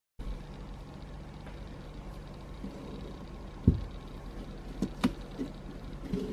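A hollowed-out pumpkin being handled on a stone countertop: one low thump about three and a half seconds in, then a few lighter knocks and clicks. A steady low hum runs underneath.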